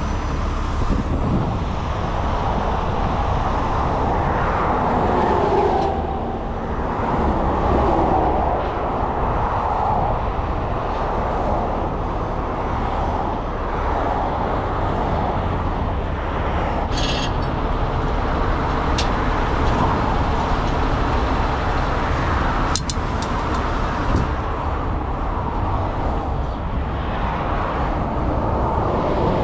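Heavy truck's diesel engine running steadily, with a few short sharp clicks past the middle.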